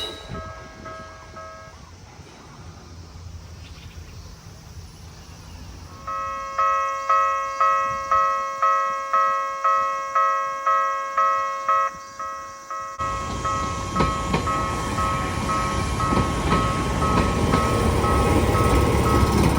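Japanese level-crossing alarm ringing, an electronic bell-like tone struck about twice a second with each stroke dying away. About two-thirds of the way in, the running noise of a train comes up loud under the alarm and keeps building while the alarm goes on.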